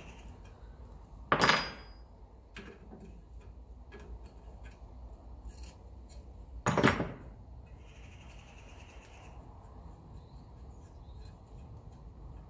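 Metal tools and water-pump parts being handled: two loud metallic knocks about five seconds apart, the first with a brief ringing, with small clicks and clinks in between.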